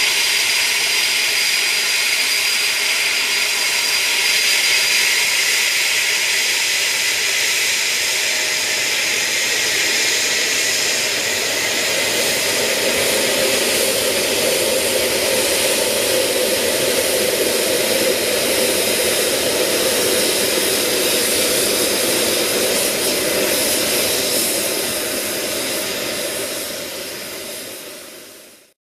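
Jet engines of a Eurofighter Typhoon (twin EJ200 turbofans) running at ground idle: a steady whine over a loud rush of exhaust. The sound deepens a little about halfway through and fades out near the end.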